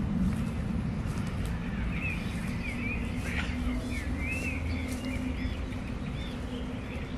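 Small birds chirping in short, quick calls, most of them from about two seconds in, over a steady low rumble.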